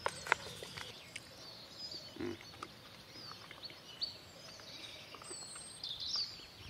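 Small birds singing, with short high chirps and twittering calls throughout. Right at the start there are a few sharp crinkles from a freeze-dried meal pouch being torn open.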